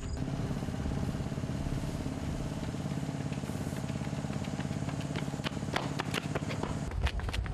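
Small engine idling steadily with a fast, even pulse, which cuts off suddenly about seven seconds in. A few sharp clicks come just before it stops.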